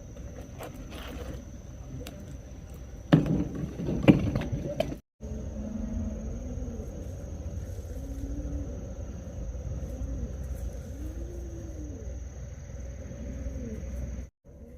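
Hens giving short low clucking calls over a steady machine hum in a poultry house, with a loud burst of clattering knocks about three seconds in.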